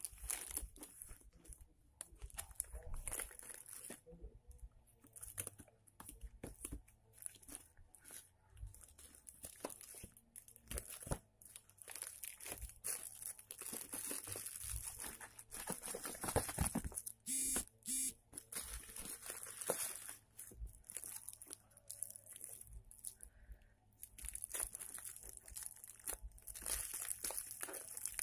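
Plastic parcel wrapping crinkling and tearing as it is handled and cut open with scissors, in irregular crackles with a short rapid run of crackling about two-thirds of the way through.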